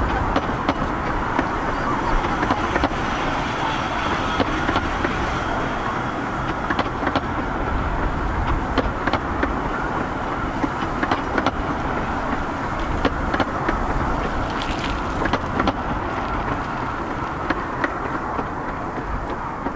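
Narrow-gauge passenger carriages rolling past: a steady rumble of wheels on track, with frequent sharp clicks as the wheels run over rail joints.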